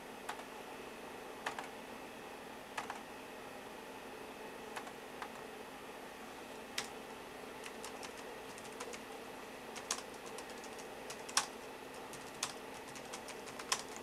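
Key clicks and taps on an iBook G3 laptop's keyboard and trackpad button. They come one at a time every second or so at first, then in a quicker run of taps over the last few seconds.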